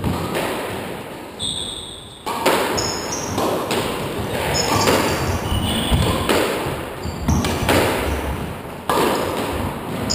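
Squash ball smacked by rackets and off the court walls during a rally, a sharp knock about every second or so, with short high squeaks from sneakers on the wooden floor.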